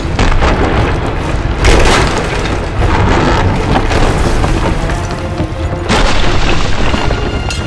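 Dramatic film score mixed with booming impact sound effects, with heavy hits about two seconds in and again about six seconds in.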